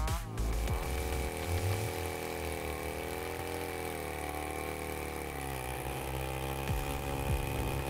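A machine's engine running at a steady speed, its pitch wavering slowly up and down, with a thin steady high whine above it.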